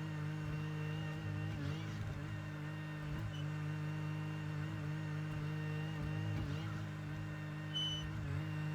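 Bobcat E42 mini excavator's diesel engine running steadily under working load, its pitch dipping slightly every second or two as the hydraulics take the strain, with a brief high squeak near the end.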